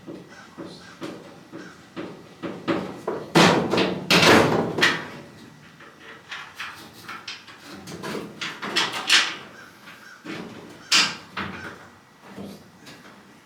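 Loose steel fender panel clanking and rattling against the truck body as it is shifted into place and bolted. There are irregular knocks throughout, with the longest and loudest rattle a few seconds in and sharp clanks later on.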